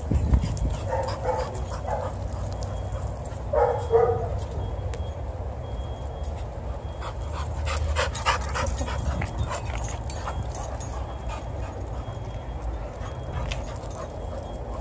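Pit bull-type dogs making a few short high cries about a second in and again around four seconds in, with a run of light clicks in the middle and a steady low rumble underneath.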